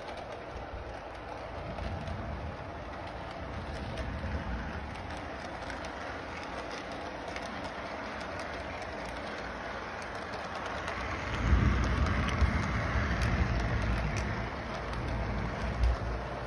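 Model train running on its track, a steady rolling rumble of the motor and wheels, with a louder low rumble starting about eleven seconds in as the cars pass close.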